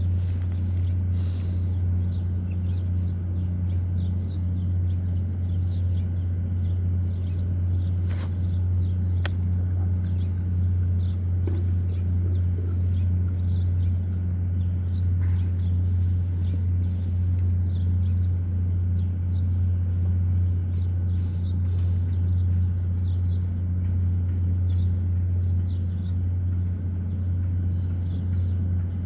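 A machine running steadily with a constant low hum, with faint bird chirps above it.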